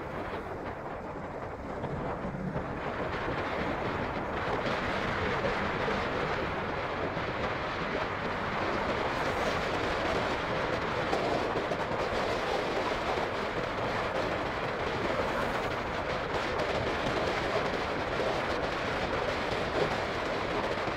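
Steady riding noise from a Honda CB150R motorcycle under way: an even rush of wind, road and engine noise that grows louder between about two and four seconds in, then holds.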